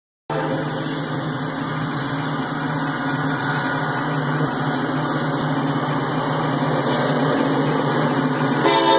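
A steady engine idling with a low hum. Near the end a sustained chord of several steady tones starts.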